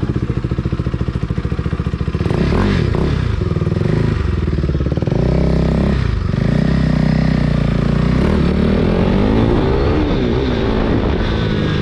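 KTM RC 390's single-cylinder engine through an Akrapovic full-system exhaust, idling with an even beat, then pulling away about two seconds in and accelerating with rising revs, dropping briefly around six seconds in as a gear is changed before rising again.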